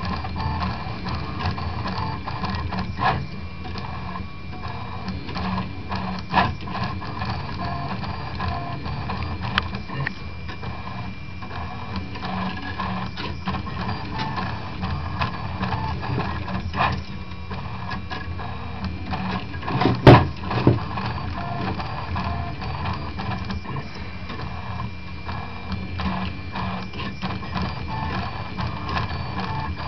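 Prusa Mendel 2-type RepRap 3D printer printing, its stepper motors whirring and buzzing steadily as the axes move. Scattered sharp clicks are heard, and one loud knock comes about two-thirds of the way through.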